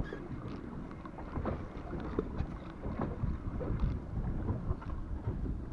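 Water lapping against a small boat's hull with wind on the microphone, and scattered small knocks and splashes.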